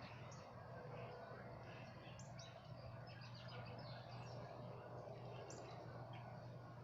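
Small birds chirping with many short, high calls, over a faint steady low hum.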